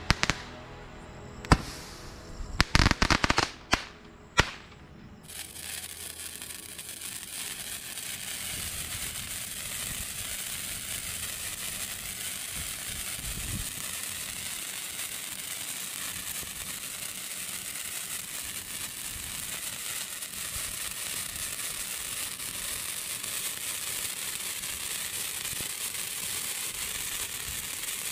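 A few sharp firework bangs in the first few seconds as a multi-shot aerial cracker fires its last shots. Then a big hand-held sparkler burns with a steady, crackling hiss.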